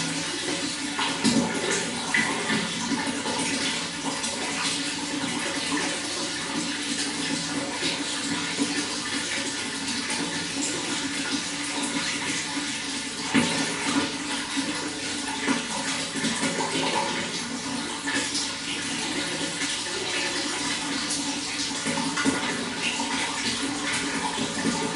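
Running water flowing steadily, with many small irregular splashes and gurgles.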